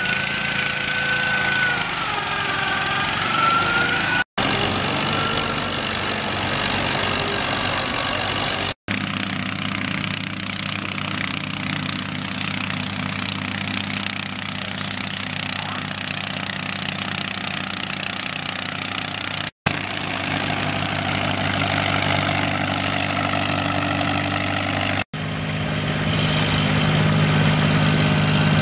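Small lawn and garden tractor engines running steadily under load while pulling a weighted sled, in several short stretches that cut abruptly from one tractor to the next. A whine wavers up and down in the first few seconds.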